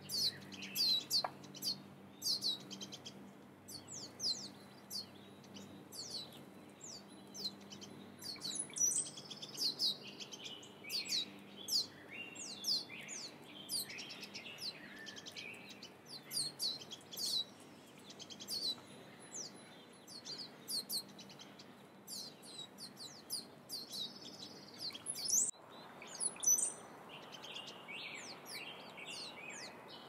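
Wild turkey poults peeping: a rapid, continuous run of short, high chirps that drop in pitch, several a second.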